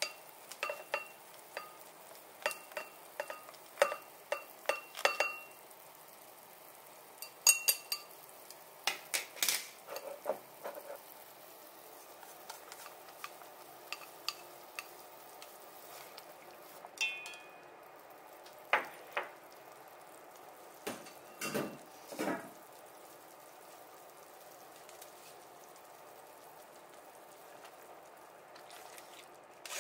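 Kitchen utensil sounds: a plastic grater tapped and scraped against a small ceramic bowl in a quick run of clicks, some ringing briefly, then a ladle clinking and knocking in a pot of simmering vegetable broth, with a few scattered knocks over a faint steady hiss.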